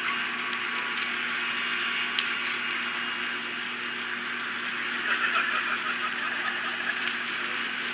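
Steady hiss of outdoor night ambience through a nest-cam microphone, with a low steady electrical hum and a few faint clicks.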